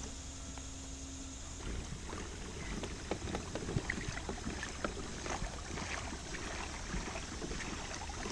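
Water lapping and splashing against the hull of a moving kayak: many small, irregular splashes and trickles. They begin a couple of seconds in.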